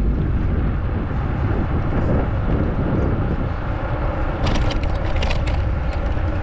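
Steady low rumble of wind and road noise while travelling along a road, with sharp crackles from about four and a half seconds in.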